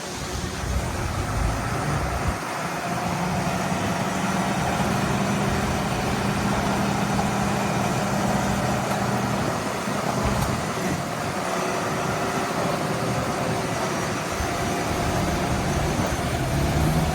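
Heavy diesel engine of earthmoving machinery running steadily under load, its pitch rising near the end as it revs up.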